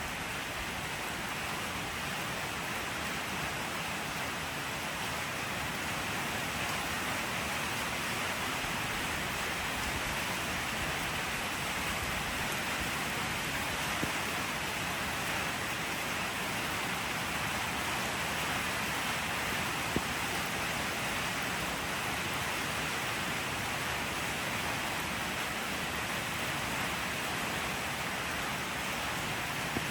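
Steady rain falling, an even hiss with a few faint single drips or taps.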